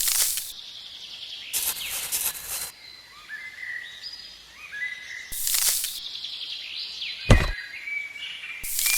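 Small birds chirping outdoors in short rising and falling calls, among several bursts of rushing, hiss-like noise, with one sharp thump about seven seconds in.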